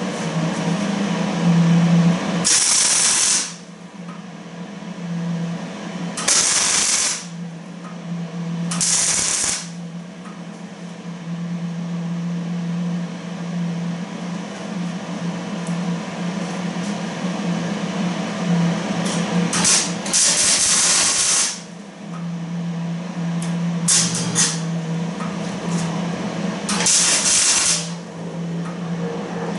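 Arc welding in short bursts: about six welds of a second or two each, each one a loud crackling hiss that starts and stops sharply, over a steady low hum. These are the welds fixing the trommel's tube-support wheel back onto its extension.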